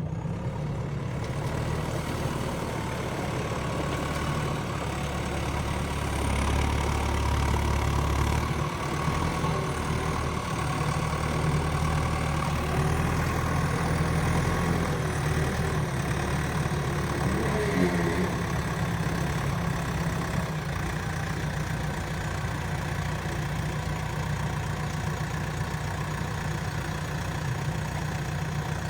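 Diesel engine of a JCB 3DX backhoe loader running steadily, a little louder for a stretch in the middle and then settling back.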